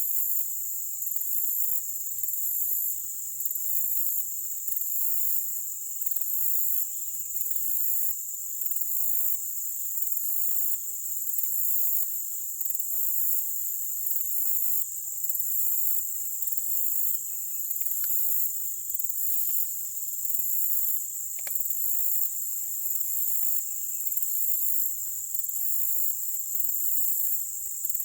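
Chorus of insects, likely crickets: a steady high-pitched buzz with an even higher trilling that pulses on and off in a regular rhythm. A few faint chirps and a couple of short ticks sound around two-thirds of the way through.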